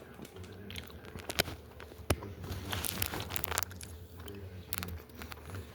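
A person eating close to the microphone: chewing and biting, with scattered sharp mouth clicks and a short stretch of crinkling around the middle, over a low steady hum.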